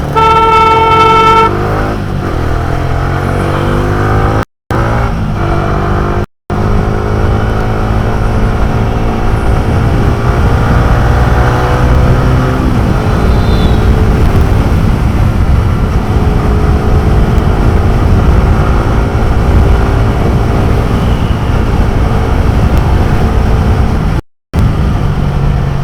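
Motorcycle engine running under way, its pitch rising as it accelerates, over a steady low rumble of wind on the microphone. A vehicle horn sounds one steady note for about a second and a half at the start, and the sound cuts out briefly three times.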